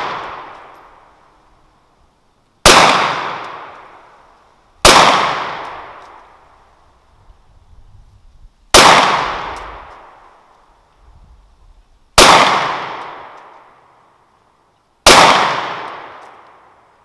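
Springfield XD-S 9mm subcompact pistol fired five times, unhurried shots two to four seconds apart. Each crack rings out and fades away over about two seconds.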